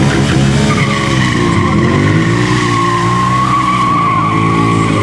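Ducati Monster 696 air-cooled V-twin motorcycle engines revving up and down under stunt riding. From about a second in there is a sustained tyre squeal.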